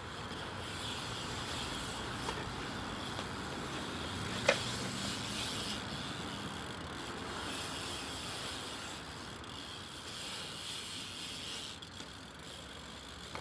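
BMX bike rolling across skatepark concrete: a steady tyre hiss, with one sharp clack about four and a half seconds in.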